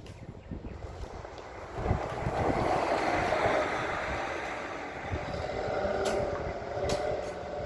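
Truck-mounted drill rig's engine running steadily, growing louder about two seconds in.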